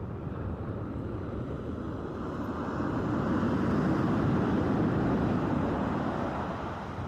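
Sea surf on the shore: the rush of the waves swells to a louder breaker in the middle, then eases back.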